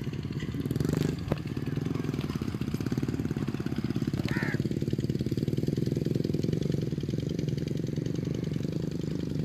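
An engine running steadily with a low, rapidly pulsing hum. A short high chirp comes about four seconds in.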